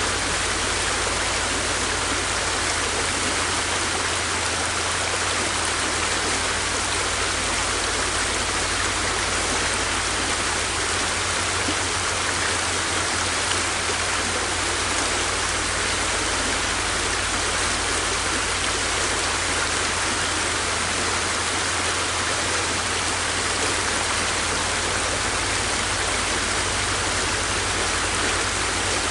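River water flowing steadily: a constant rushing hiss with a low rumble underneath.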